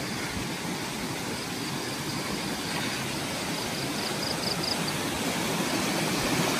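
Shallow river running over rocks, a steady rushing hiss that grows gradually louder as it is approached.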